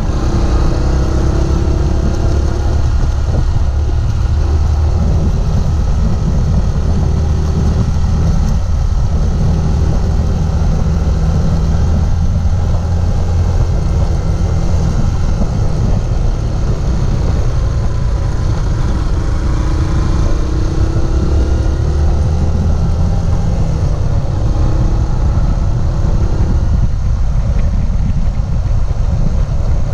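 Motorcycle engine running steadily while riding, its pitch rising and falling slightly with the throttle.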